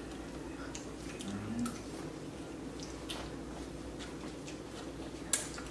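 Close-up eating sounds of spicy instant ramen noodles: short wet slurps and sucking sounds from forkfuls of noodles, with a brief low hum about one and a half seconds in and a sharp click near the end.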